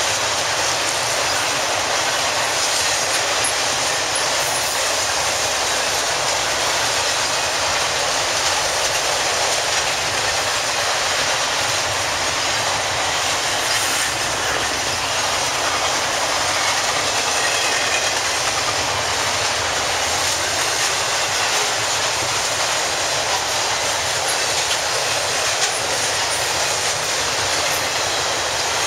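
Intermodal freight train's cars rolling steadily past, a continuous noise of wheels clattering on the rails with no break.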